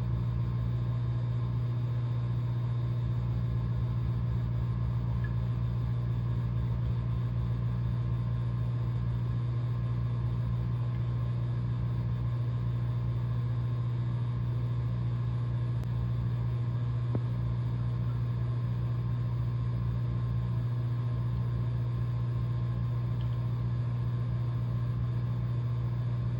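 Steady low mechanical hum with a few fainter steady higher tones, unchanging throughout.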